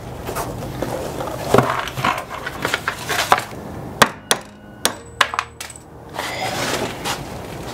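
Metal handling noise, then a small metal part drops and bounces several times with sharp clicks and a brief metallic ring, about four to five and a half seconds in.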